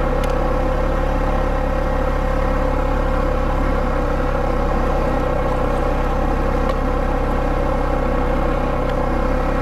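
Polaris Sportsman 570 ATV's single-cylinder engine running at a steady speed while riding, its pitch holding level throughout.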